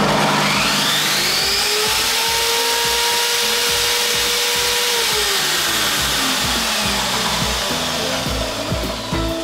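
Parkside PTKS 2000 G5 table saw's motor, started through a soft-start module, spinning up over about a second and a half, running steadily, then switched off about five seconds in and winding down over the next three seconds.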